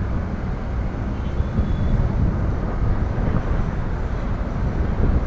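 Car driving slowly: steady low rumble of engine, tyres and wind, as heard by a camera mounted on the car's hood.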